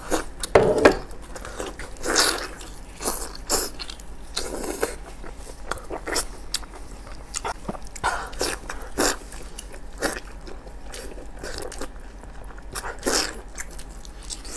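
Wet biting, tearing and chewing of chili-sauced lamb tripe, heard close up as irregular smacks and clicks, louder a few times.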